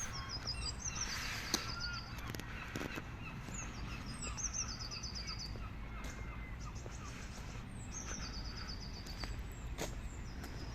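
A bird calling: a quick run of high, rapid notes that drops in pitch, three times about four seconds apart, over a steady low outdoor rumble.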